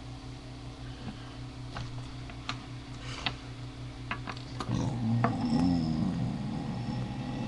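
A man's long, low belch starting a little past halfway, its pitch wavering, after a few scattered sharp clicks over a low steady hum.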